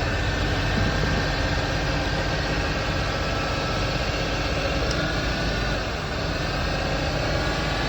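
A car engine running steadily, with a constant low rumble.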